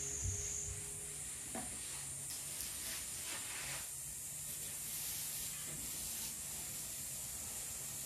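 Water hissing from a garden hose during watering, coming in several swells of a second or so over a steady high hiss.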